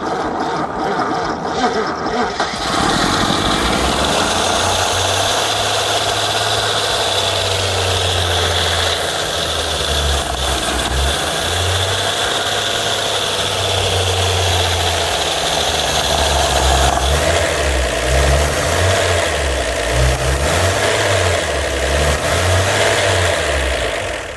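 Freshly rebuilt 1950 Chevrolet stovebolt inline-six engine cranking on the starter for about two and a half seconds, then catching and running steadily on its first start after the rebuild, ahead of cam break-in. It runs smoothly, described as purring at about 500 RPM.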